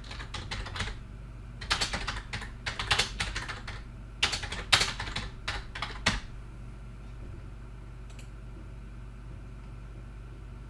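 Typing on a computer keyboard in several quick bursts of key clicks for about six seconds, then stopping. A low steady hum runs underneath.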